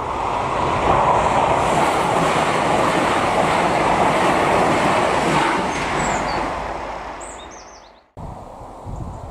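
Laden timber train hauled by an Irish Rail 071 class diesel locomotive passing close by: a loud, steady rush of wheel and rail noise that swells, holds, then fades. It cuts off abruptly about eight seconds in, followed by wind on the microphone.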